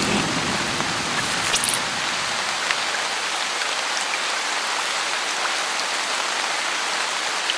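Steady heavy rain falling, a dense even hiss with a few scattered sharp drop taps. A low rumble fades away in the first couple of seconds.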